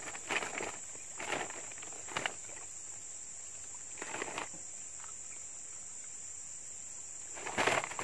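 Steady high-pitched insect drone, with a few short rustling, scuffing noises from handling or moving about at the bank, the loudest near the end.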